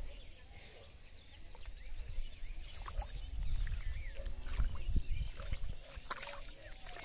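Outdoor ambience: wind rumbling on the phone's microphone as it is moved about, with faint bird chirps and a murmur of distant voices.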